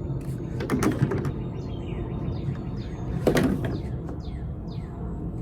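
Two short noisy handling sounds about two and a half seconds apart, over a steady low rumble. A run of quick falling bird chirps comes in the second half.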